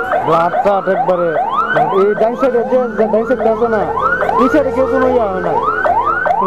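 Emergency vehicle siren sounding in quick rising whoops, about three a second.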